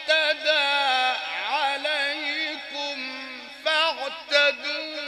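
A male Quran reciter chanting in the ornate Egyptian mujawwad style, drawing out long melismatic phrases with quick wavering ornaments and brief breaths between them.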